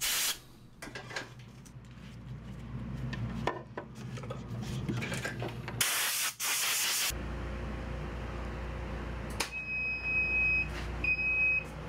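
Compressed air blowing out a powder coating gun and hose to clear the old powder: short hisses, then a loud blast about a second long starting about six seconds in, over the steady low hum of a dust collection fan. Near the end, long high electronic beeps, about one a second, from the powder coating oven's controls.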